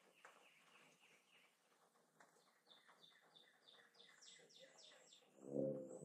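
Faint songbirds singing in woodland: a run of repeated down-slurred whistled notes, then a faster series of higher notes that climb in pitch. Near the end comes a brief, louder low hum.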